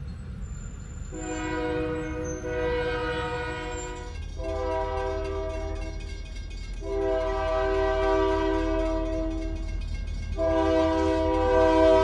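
Diesel locomotive's multi-chime air horn sounding four long blasts for a grade crossing, its several notes held together as one chord. The last blast is the loudest as the locomotive reaches the crossing, with a low engine rumble underneath.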